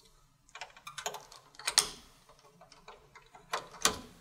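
Small plastic and metal clicks and clacks as a 200 DPI thermal printhead and its cable connectors are fitted into an Intermec PM23c label printer: a run of light taps, a louder snap just under two seconds in, and two sharp clicks near the end.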